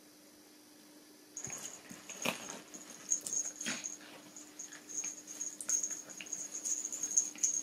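Two Japanese Terriers play-fighting on a fabric sofa: scuffling and short dog noises in quick irregular bursts, starting about a second and a half in.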